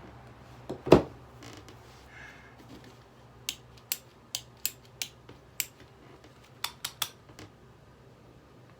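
One loud knock about a second in, then a run of about ten sharp, irregular clicks or snips from about three and a half to seven and a half seconds in.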